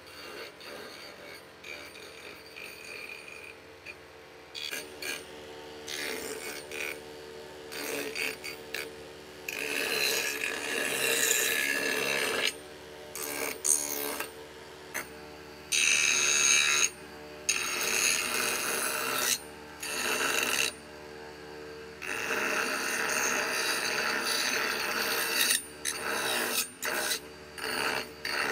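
Wooden carving ground against a spinning abrasive disc on a motor shaft: a harsh rasping in repeated stop-start bursts as the wood is pressed on and pulled away, fainter at first and louder from about a third of the way in.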